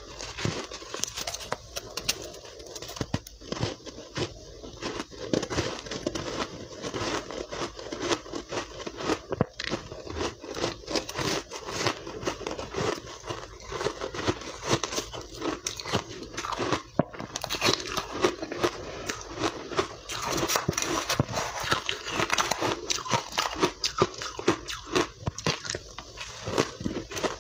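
Crunching and chewing of refrozen soft ice dusted with matcha powder, heard close up: a dense, continuous run of crunches as the ice breaks between the teeth.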